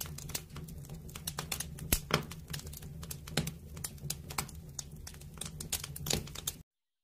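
Fire crackling: irregular sharp crackles and pops over a low steady rumble, cutting off abruptly near the end.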